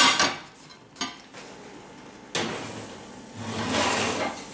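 Aluminium lid clattering down onto an aluminium cooking pot at the very start, then a short knock about a second in. From about halfway comes a rough scraping and rustling noise that swells and fades as the covered pot is handled into the oven.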